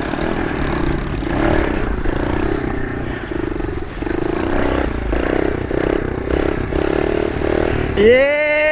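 Kawasaki KLX110 pit bike's small four-stroke single-cylinder engine running under way, heard from the rider's seat with wind noise, its note pulsing unevenly. Near the end a rider lets out a loud rising-and-falling shout.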